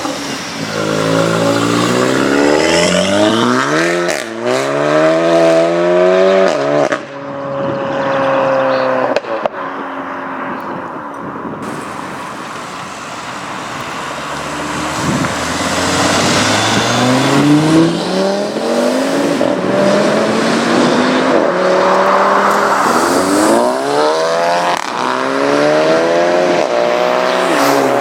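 Modified Volkswagen Golf hot hatches accelerating hard away, engine pitch climbing through the gears with a break at each upshift. A first run fades out about 7 s in, and after a quieter stretch a second car pulls away through several quick upshifts.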